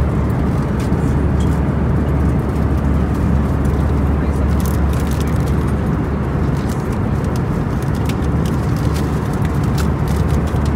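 Airbus A320 cabin noise in flight: the steady, unbroken rumble of the jet engines and rushing air, heaviest in the low end.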